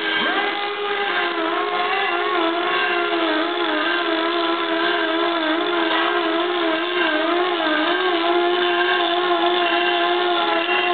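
Electric flexible shaft grinder running with an abrasive disc, grinding a metal casting. It gives a steady high whine whose pitch wavers slightly, with a short rise in pitch right at the start.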